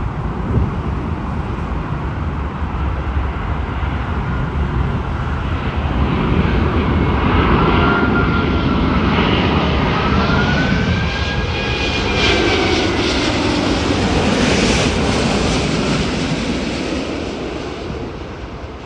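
Airbus A380's four jet engines passing on a landing approach: a rushing roar that grows louder, carries a whine that bends in pitch as the airliner goes by, then fades away near the end.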